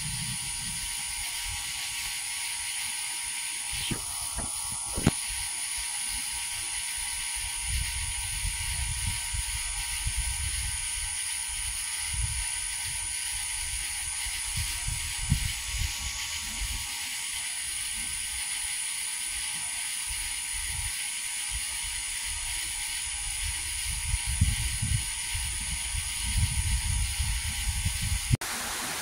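Steady high-pitched hiss of outdoor ambience, with intermittent low rumbles and two sharp clicks about four and five seconds in.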